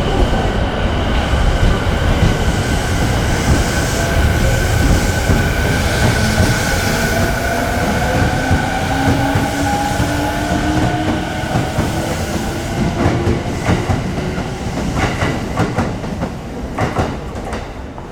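Electric commuter or express train running through the station, its traction-motor inverter whine rising in pitch over the rumble of the wheels. In the last few seconds the wheels clack over rail joints.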